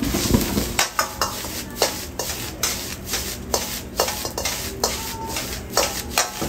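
A metal wok ladle repeatedly clanking and scraping against a carbon-steel wok as noodles are stir-fried and tossed: a dozen or so sharp, irregular clanks.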